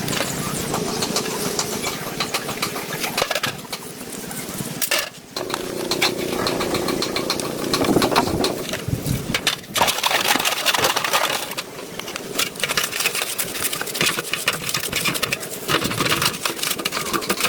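A motor running with a rapid, rough pulse, dropping out briefly about five seconds in and again near ten seconds.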